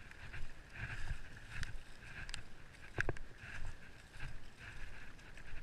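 Shallow water sloshing and splashing in uneven surges as someone wades through it, with a few sharp clicks, the loudest about three seconds in.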